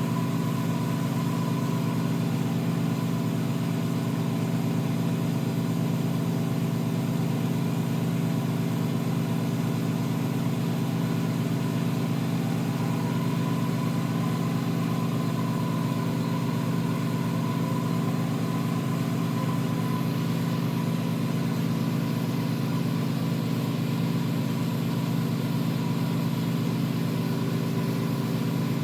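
Steady low machine hum, with a faint tone near 1 kHz that wavers slightly.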